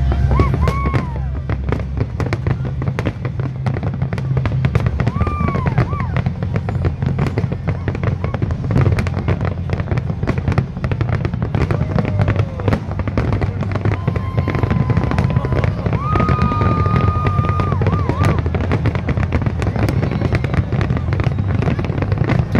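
Fireworks display going off continuously: a rapid, dense run of bangs and crackles, with a few short whistling tones over a steady low rumble.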